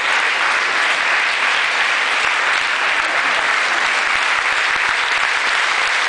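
Audience applauding, many hands clapping in a steady, unbroken round.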